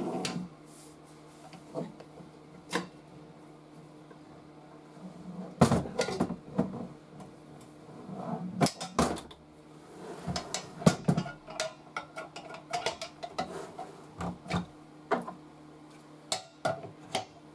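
Clunks and knocks of a small air compressor's steel tank being lifted, turned over and set down on a workbench, the heaviest knocks about six and nine seconds in. These are followed by a run of light plastic clicks and rattles from its wheel parts. The compressor itself is not running.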